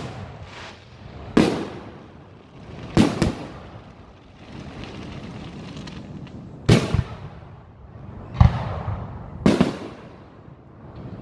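Aerial fireworks shells bursting: about six sharp booms a second or two apart, some coming in quick pairs, each dying away over a second or so.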